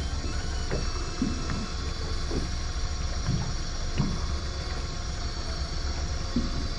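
A fishing boat at sea, with a steady low engine hum and a scatter of irregular dull knocks.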